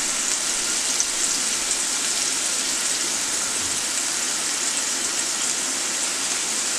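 Beef steaks sizzling steadily as they fry in oil in a square nonstick pan.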